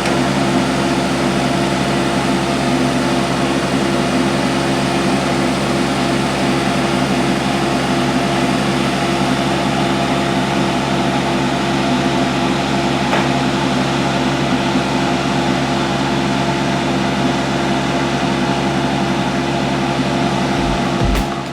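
A large engine running steadily at one constant speed, with an even hum. Music with a heavy bass beat starts right at the end.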